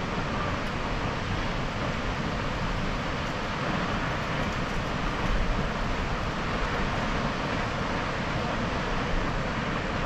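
Tad Fane waterfall's falling water giving a steady, unbroken rushing roar.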